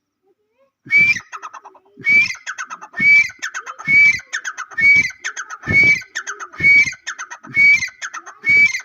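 Teetar (partridge) calling loudly and repeatedly: a sharp call about once a second, with fast runs of short ticking notes in between. It starts about a second in.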